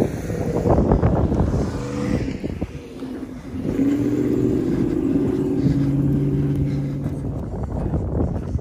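A motor vehicle's engine running nearby, a steady low hum that grows stronger about halfway through.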